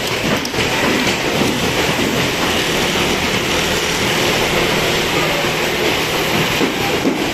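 Industrial sewing machines running steadily, a dense, even mechanical clatter.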